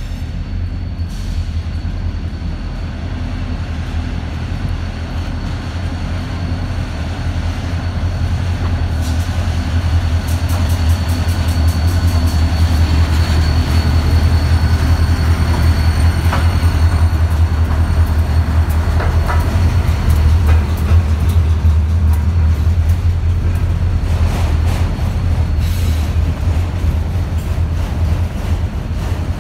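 Diesel freight locomotives, a Dakota, Minnesota & Eastern unit leading a CP unit, passing close by with a steady deep engine drone that swells as they go by and is loudest in the middle. Then the autorack cars rolling past, with bursts of wheel clicks over the rail joints.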